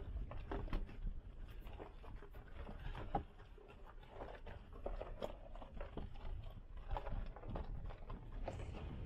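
Footsteps crunching irregularly on a dirt and gravel desert trail, roughly one step a second, over a steady low rumble of wind on the microphone.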